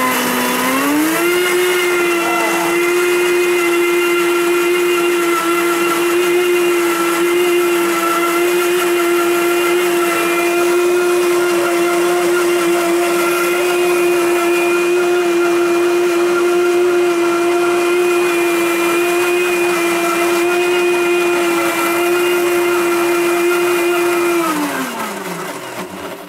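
Blendtec blender motor running, puréeing a cheeseburger in chocolate milk. About a second in it steps up to a higher speed and holds a steady whine, then winds down and stops near the end.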